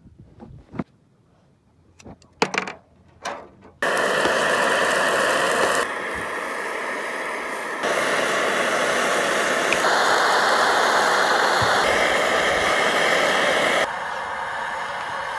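A few sharp knife strikes slicing chorizo on a plastic cutting board, then, about four seconds in, a steady loud hiss of chorizo, tomato and onion sizzling in a frying pan on a camping gas stove, its level jumping at cuts every couple of seconds.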